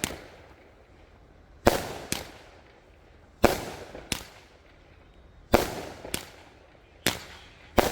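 A 200-gram consumer firework cake firing its shots: sharp bangs that come in pairs about half a second apart, a pair every second and a half to two seconds, four pairs in all.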